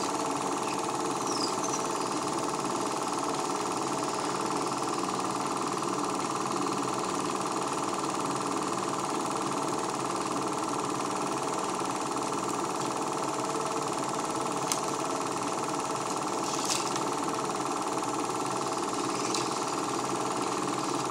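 Home-movie film projector running steadily, a continuous mechanical whir with a few faint clicks in the second half.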